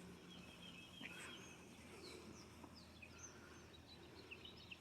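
Faint outdoor quiet with scattered short bird chirps, quick high notes dotted through, over a low steady hum.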